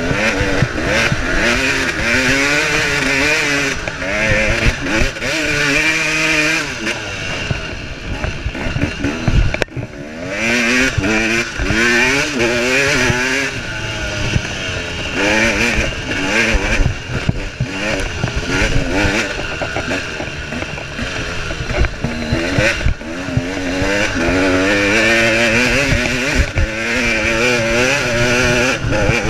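KTM 300 XC single-cylinder two-stroke dirt bike engine running hard under race load, its pitch rising and falling again and again with the throttle and gear changes, briefly dropping off about ten seconds in. A rushing noise and scattered knocks from the rough ground run underneath.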